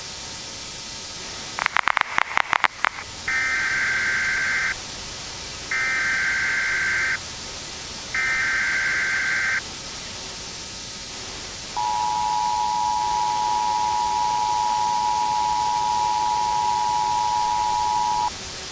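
Emergency Alert System tones over steady tape hiss. A short stutter of rapid clicks comes first. Then three buzzing SAME digital header bursts play about a second apart, and the two-tone EAS attention signal is held steady for about six and a half seconds.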